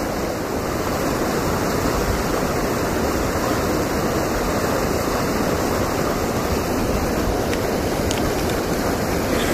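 Steady, even rushing of river water flowing below a spillway.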